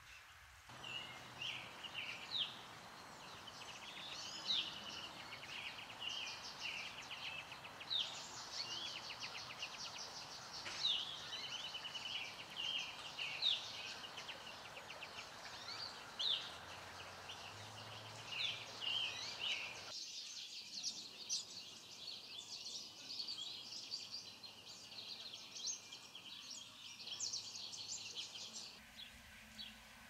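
Several songbirds chirping and trilling again and again over a steady outdoor background hiss. The hiss drops away abruptly about two-thirds of the way through, while the birdsong carries on.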